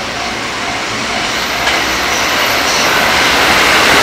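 Electric passenger train approaching at speed, the rumble of its wheels on the rails growing steadily louder as it nears. A faint steady high whine joins about a second and a half in.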